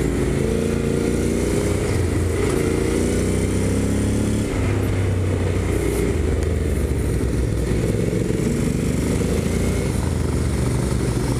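Honda NC750X parallel-twin engine running under way, its revs rising and falling as the rider works the throttle through the bends. Wind rushes over the bike-mounted microphone.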